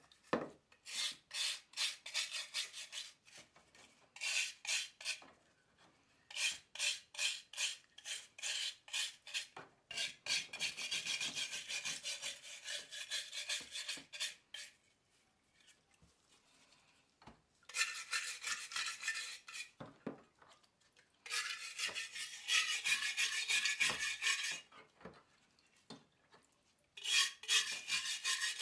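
Rust being scoured by hand off a rusty steel Mauser 98K bayonet scabbard: quick rasping strokes, about three a second, in bursts separated by short pauses. Several bursts run together into longer stretches of steady rasping.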